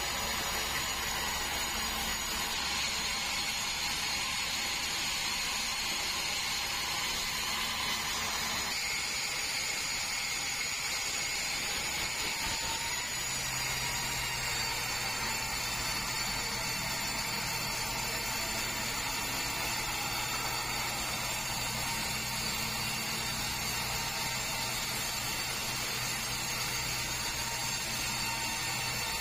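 Sawmill band saw running steadily through a large meranti log, a continuous machine whine whose note shifts twice, about nine and thirteen seconds in.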